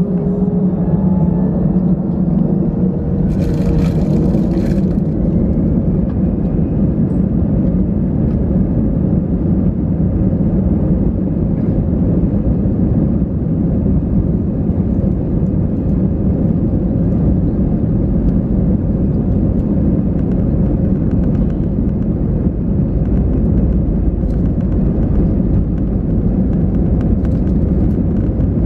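Cabin noise of an Airbus A320-214 moving on the ground: a steady, loud rumble of its CFM56 engines and the rolling aircraft, with a faint rising engine tone near the start. A short hiss comes about three seconds in and lasts under two seconds.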